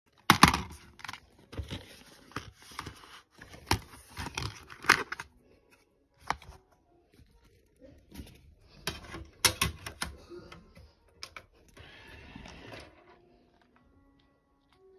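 Handling noise from a phone being moved about over bedding: irregular clicks and knocks with rustling, bunched in the first five seconds and again around nine to eleven seconds, and a short stretch of rustle a little before the end.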